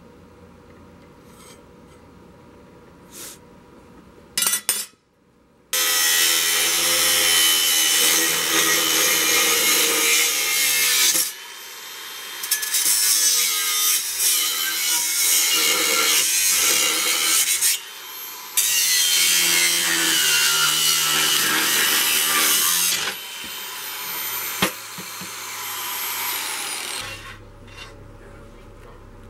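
Makita angle grinder grinding into steel square tubing in three long passes with short breaks, then running lighter and winding down near the end. A few faint clicks of marking tools come before it starts.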